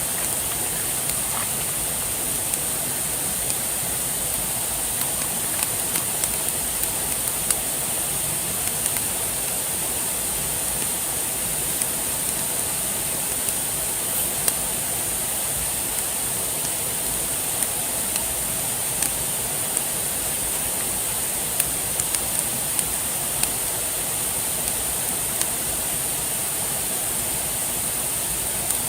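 Campfire crackling, with scattered sharp pops, over a steady rushing hiss like running water.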